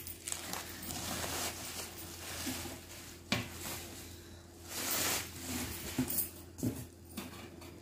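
Bubble wrap and plastic packaging rustling and crinkling as a wire oven rack is handled in its box, with one sharp tap a little over three seconds in.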